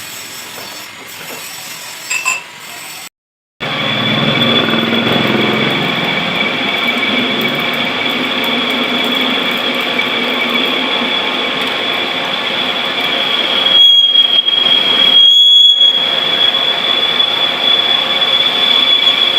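Manual lathe cutting metal. After a brief break in the sound about three seconds in, a steady high-pitched squeal of the tool on the workpiece runs over the cutting noise.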